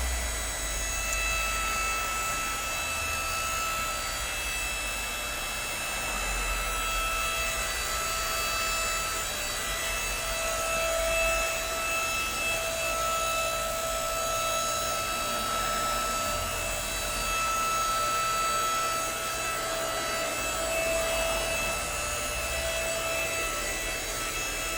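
Electric hydraulic log splitter running: its motor and pump give a steady whine and hum, growing a little louder at times.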